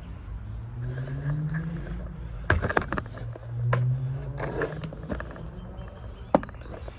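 Several sharp clacks and knocks of hard parts being handled, the loudest about two and a half seconds in and again near the end, over a low hum that rises in pitch twice.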